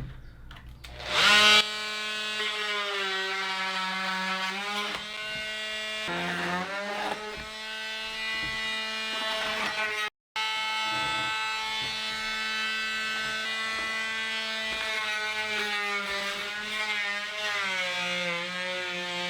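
Dremel rotary tool starting up about a second in and running at high speed as it cuts and trims plastic. Its whine sags in pitch several times as the bit bites into the material and then climbs back. It breaks off for a moment about halfway.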